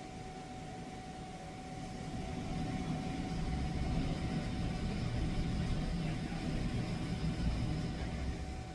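Electric power steering rack making a low grinding rumble with a steady whine over it, building up about two seconds in and easing near the end: the grinding noise of a faulty EPS rack.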